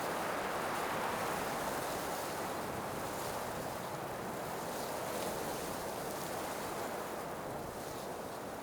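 Blizzard wind blowing in a steady, dense rush, easing a little in level over the seconds.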